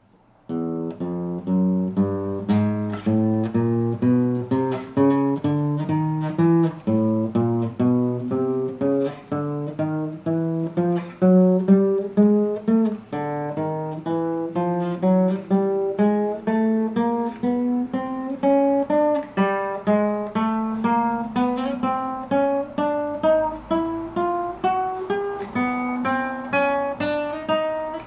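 Acoustic guitar plucking single notes one after another, several a second, climbing step by step up the neck in repeated rising runs: the note of each fret played in turn.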